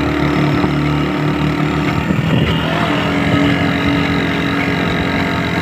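Motorcycle engine running at a steady road speed, heard from the rider's seat, with a brief change in its note about two seconds in.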